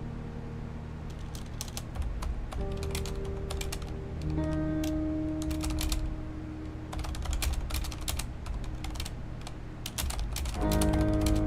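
Typing on a Corsair mechanical keyboard: runs of quick key clicks with short pauses between them. Soft background music with long held notes plays underneath.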